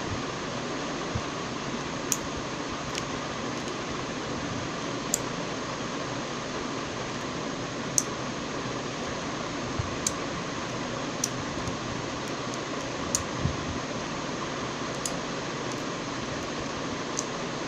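Four-channel relay module clicking as its relays are switched on and off by remote: about a dozen short, sharp clicks at irregular intervals over a steady hiss.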